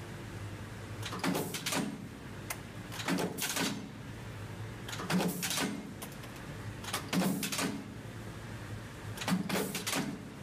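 Punch press stamping out pocket-knife back springs from strip steel: a pair of sharp metallic clanks about every two seconds, five times, over the steady hum of the press motor.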